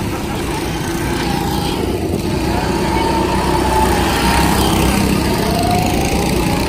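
Small go-kart engines running as the karts circle a track, the engine pitch rising and falling. The sound grows a little louder partway through.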